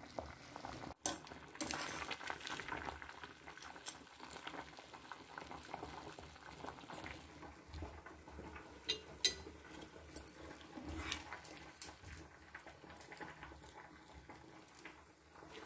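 A pot of basmati rice boiling hard in water on a high gas flame, bubbling steadily, the rice about half cooked. A few sharp metal clinks of a strainer spoon against the pot come through as the rice is scooped out.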